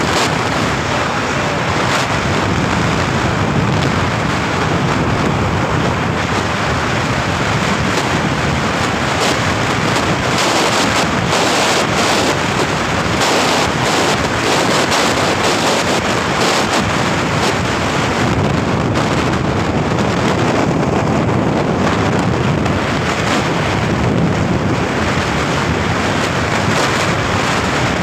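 Steady rushing wind and road noise from a vehicle driving at speed, with wind buffeting the microphone. The buffeting crackles hardest near the middle.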